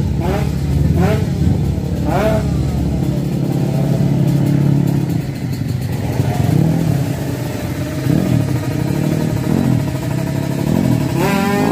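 Drag-race motorcycle engines running in the paddock, with a few quick throttle blips in the first couple of seconds and a rising rev near the end.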